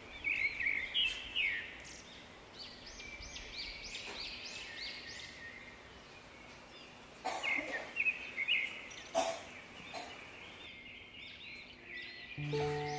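Small birds chirping in bursts of short, arching high notes, with a few sharp clicks about halfway through. Music with steady tones comes in near the end.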